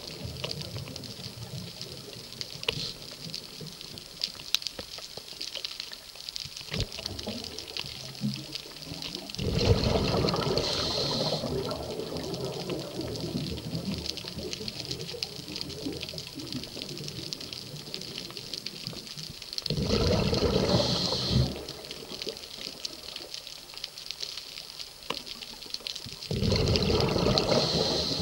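Scuba diver's breathing heard underwater: three bursts of exhaled bubbles rushing from the regulator, each about two seconds long and several seconds apart, over a steady low water hiss.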